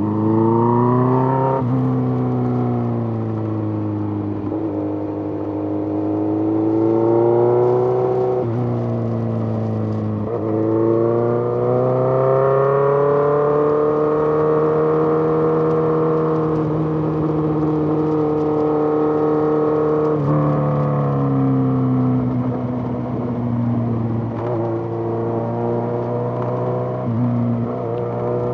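Suzuki GSX-R1000 inline-four engine heard from the bike while riding. Its pitch climbs and falls with the throttle, with several sudden jumps and drops at the gear changes, and there is a long steady pull in the middle.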